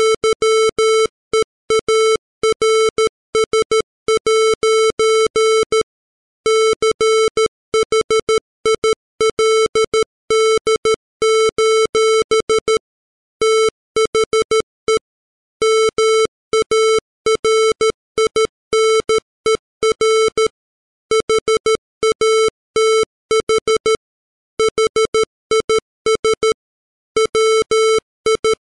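Computer-generated Morse code at 13 words per minute: a 440-hertz square-wave tone keyed on and off in dots and dashes, with short gaps between letters and longer pauses between words.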